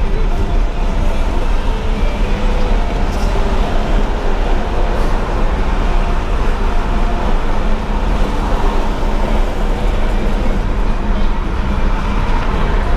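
Steady road and engine noise inside a vehicle's cab at highway speed, even and unbroken throughout.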